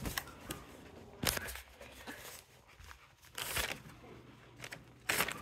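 Handling noise: fabric and plastic rustling against the phone's microphone, in a few short bursts with quieter gaps between them.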